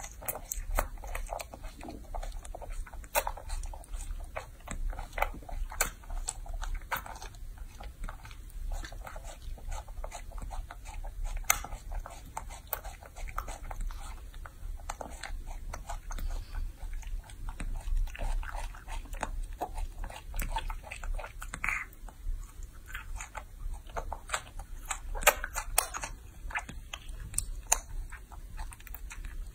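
Baby macaque chewing and smacking on mouthfuls of fruit, close up: a steady run of quick, wet clicks and crunches.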